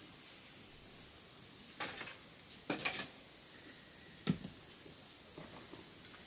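A few short knocks and rustles over a faint steady hiss, the loudest a sharp knock about four seconds in: a person shifting about and handling things on an earthen floor.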